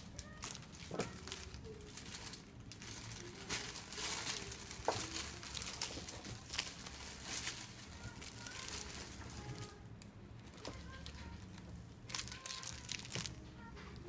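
Clear plastic wrap on the handles of small handbags crinkling as the bags are picked up and turned over by hand, in irregular rustles and sharp crackles.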